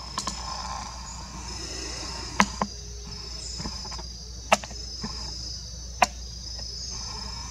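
Insects chirring steadily in a high pitch, with a few sharp clicks standing out about two and a half, four and a half and six seconds in.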